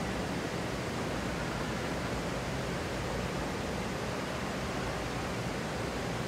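Steady, even room noise of a large hotel atrium, with the rush of water from its indoor rock-pool water feature.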